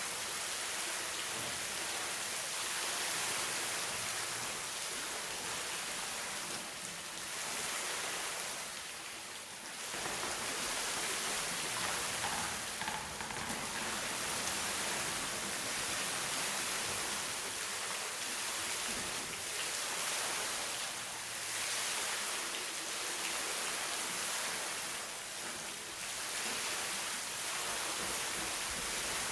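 Running water making a steady, even hiss that is strongest in the high range, with brief dips about seven and nine seconds in.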